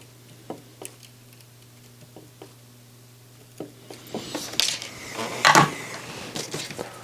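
Faint small ticks over a low steady hum, then louder scraping and rustling from about four seconds in as a thin copper wire is pulled out from under a soldered IC's pins and the soldering iron and hands leave the circuit board.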